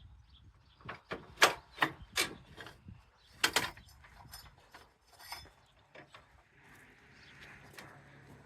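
A run of sharp clicks and knocks from hand tools and metal parts being handled while a mower deck is taken off. They bunch in the first half and thin out to a few light ticks and a faint hiss.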